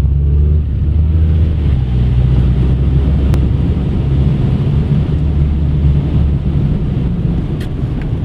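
Car running steadily: a low engine hum under a steady rushing noise.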